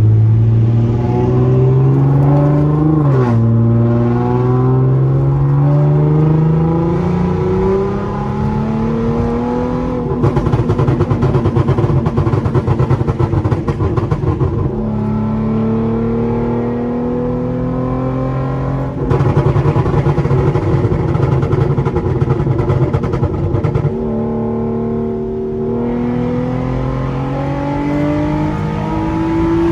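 Tuned Hyundai Genesis Coupe 3.8 V6 with straight test pipes at full throttle, its engine note rising steadily in pitch and dropping sharply at each automatic upshift, about five shifts in all.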